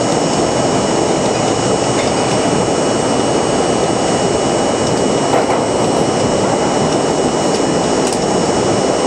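New York City subway train running through a tunnel, heard from inside the car: a loud, steady roar of wheels on rail with a faint steady high whine over it.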